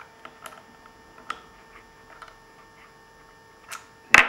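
Small scattered clicks and ticks of a hand tool and metal parts being worked on a small Tesla turbine's disc pack and acrylic housing, over a faint steady hum. A sharper, louder knock comes just before the end.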